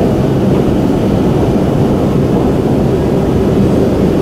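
Steady low rumble of a Shanghai Metro Line 9 train running along the line, heard from inside the carriage.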